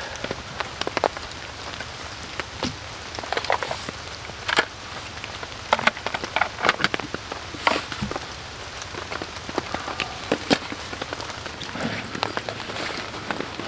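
Raindrops on a nylon tent: scattered sharp taps on the fabric over a steady hiss, with rustling and knocks from gear being handled inside the tent.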